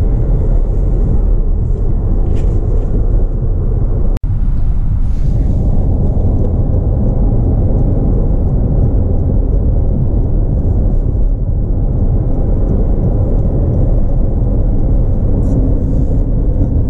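Steady low road rumble of a car driving on the highway, heard from inside the cabin: engine and tyre noise. The sound cuts out for an instant about four seconds in.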